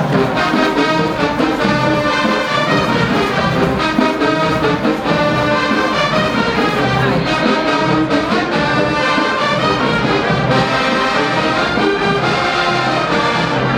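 Marching band playing a loud brass-led tune, with trombones and trumpets over a pulsing drum line.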